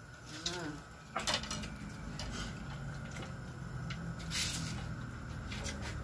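People eating grilled bullfrog by hand at a table: scattered light clicks and taps of plates and bamboo skewers, with a short murmured voice about half a second in.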